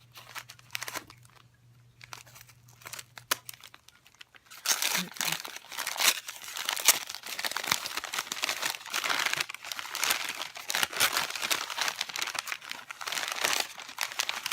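Packaging being unwrapped by hand, crinkling and tearing. There are a few light taps and rustles at first, then continuous dense crinkling from about four and a half seconds in.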